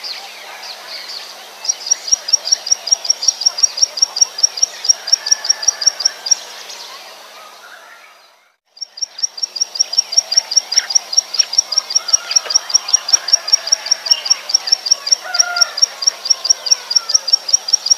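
Plain prinia (ciblek sawah) singing: a long run of rapid, high, repeated notes at about five a second. The song fades out about seven seconds in and starts again a second later.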